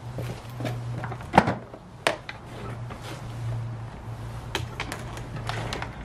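Footsteps on paving slabs and a series of sharp knocks and clunks from a Henry vacuum cleaner's plastic body being handled, the loudest about a second and a half in, with a low steady hum underneath.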